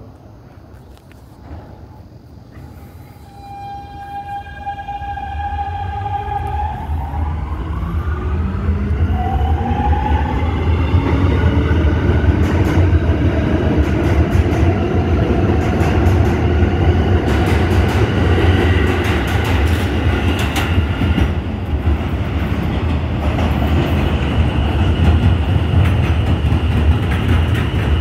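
New York City Subway train pulling in close past the platform on an elevated track: its motor whine rises in pitch as the rumble of wheels on rail builds to a loud, steady roar, with clicks of wheels over rail joints in the second half.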